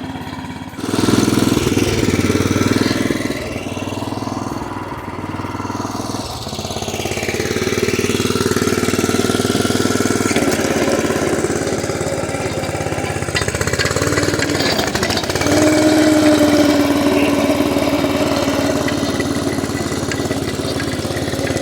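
A small engine runs steadily, jumping in level about a second in. About fifteen seconds in, a steady higher-pitched tone rises above it for a couple of seconds.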